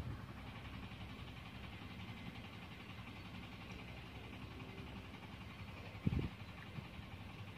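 Faint, steady outdoor background noise with a low hum, and a brief low rumble about six seconds in.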